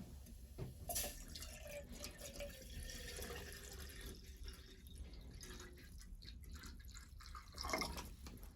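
Water dripping and trickling, with small clicks and knocks throughout and a louder splash near the end.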